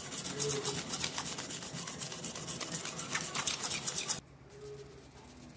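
Sandpaper rubbed by hand along a steel dagger blade in quick back-and-forth scratchy strokes, sanding off rust. The rubbing cuts off abruptly about four seconds in, leaving only faint background hiss.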